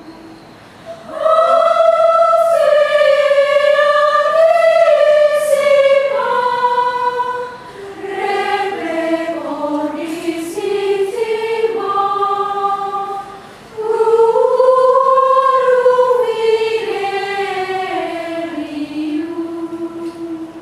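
Women's choir singing Gregorian chant unaccompanied, as a single melodic line. The long phrases are broken by short breaths about eight and thirteen seconds in, and again near the end.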